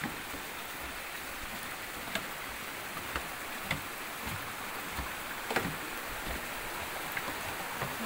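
Steady rushing of a shallow stream flowing over rocks, with scattered sharp knocks from footsteps on the wooden boardwalk planks, the loudest about five and a half seconds in.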